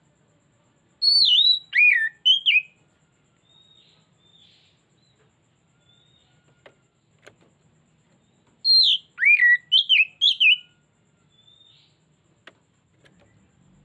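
Oriental magpie-robin (kacer) singing: two loud phrases of quick, sweeping whistled notes, one about a second in and another about seven seconds later, with faint short whistles between them.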